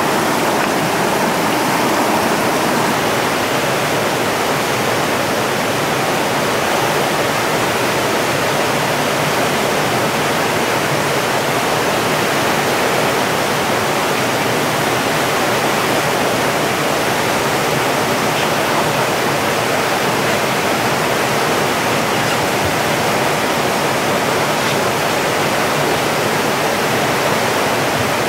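Whitewater rapids rushing below a small river falls: a loud, steady hiss of churning water with no break.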